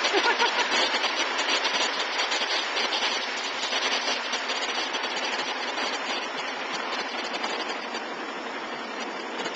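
Multi-head Tajima embroidery machine stitching, a fast, even mechanical rattle of the needle heads running steadily.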